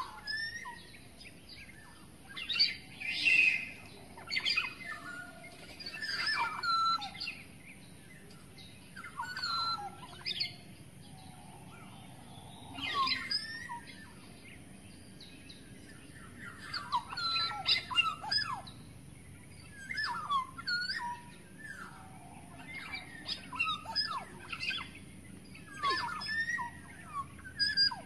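Black-naped oriole (kepodang) calling in the wild: a dozen or so short whistled phrases with quick pitch glides, one every one to three seconds with quiet gaps between.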